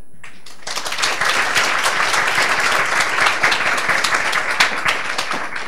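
Audience applauding, beginning about half a second in, holding steady, and tapering off near the end.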